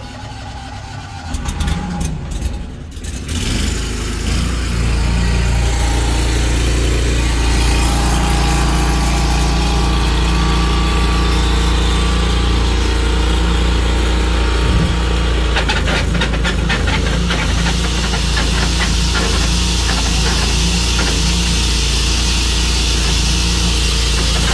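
Tru-Cut sawmill's engine being started cold: a few seconds of uneven cranking, then it catches about four seconds in and runs steadily.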